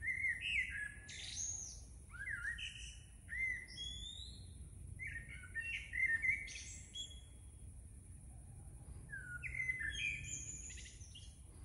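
A songbird singing in four short phrases of gliding whistled notes with pauses between them, over a faint low background rumble.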